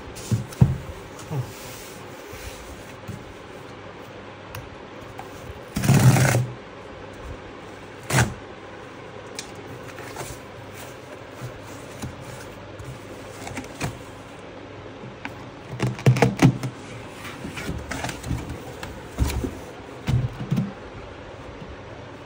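Cardboard shipping box being handled and opened: scattered knocks and rubbing of cardboard, with a longer scrape about six seconds in and a cluster of rustling and bumps a few seconds before the end as the boxed computer is slid out.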